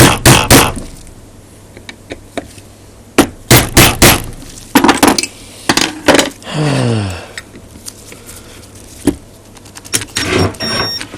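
Groups of sharp metal-on-metal hammer blows: three quick strikes at the start, a run of several a little after three seconds in, and more near the end, struck to free seized screws. A short falling tone sounds midway.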